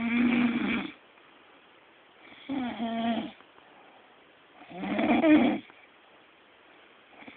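A man snoring in his sleep: three snores about two seconds apart, each lasting about a second.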